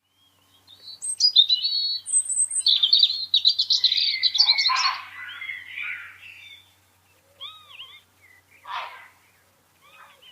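Small birds singing: a dense run of rapid, high chirps and trills for the first five seconds, then a handful of separate short, arched calls.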